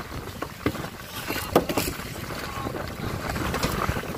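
Wind on the microphone and sea noise around a small fishing boat, with a few sharp knocks on deck as the net and freshly caught skipjack tuna are handled; the loudest knock comes about a second and a half in.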